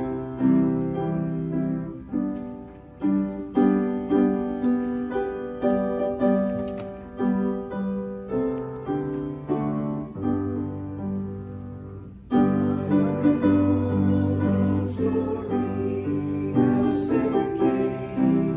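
Piano playing a hymn in chords, with struck notes that ring and fade. It gets louder and fuller about twelve seconds in.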